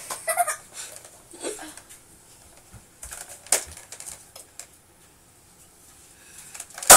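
A few light clicks and taps, then a single loud thump near the end as a boy jumps off the third step of a stepladder and lands on a carpeted floor.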